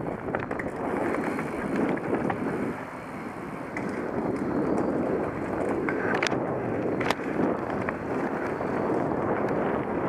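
Mountain bike rolling fast down dirt singletrack, heard from a camera riding with it: a steady rush of tyre noise and wind on the microphone. A couple of sharp knocks come a little after six and seven seconds in, as the wheels reach a wooden boardwalk.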